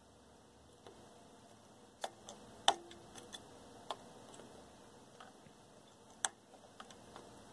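X-Acto knife blade picking at the desoldered pins of a circuit-board IC, making small sharp metallic clicks at irregular intervals, the loudest about a third of the way in. This is the pins being freed in their holes before the chip is lifted off the board.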